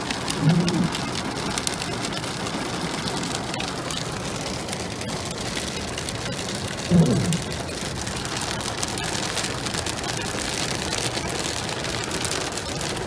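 Hail mixed with rain drumming on a car's roof and glass, heard from inside the cabin as a dense, steady patter of fine clicks. Two brief low sounds stand out, about half a second in and again about seven seconds in.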